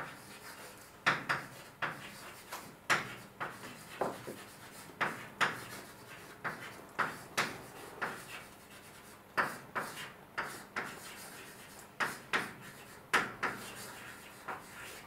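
Someone writing on a lecture board: an irregular run of short, sharp taps and scrapes, often two or three close together.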